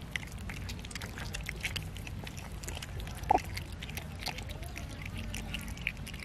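Several cats chewing and tearing raw chicken from a steel tray: a steady run of small wet clicks and crunches. One brief, louder pitched sound comes a little over three seconds in.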